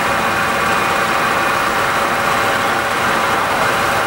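Fire engine's engine idling steadily, a continuous even hum without change.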